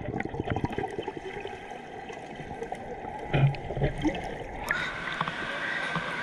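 Waterpark water sloshing and trickling, with one short louder splash a little past the middle.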